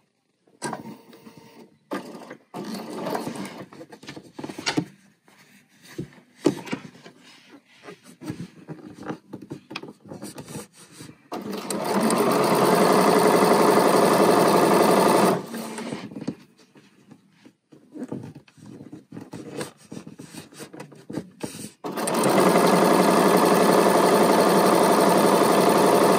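Bernina sewing machine stitching down the center of fabric-wrapped cord (piping) in two steady runs of about four seconds each, one a little before halfway and one near the end. Between the runs, soft rustling and clicks of the fabric being handled and positioned under the foot.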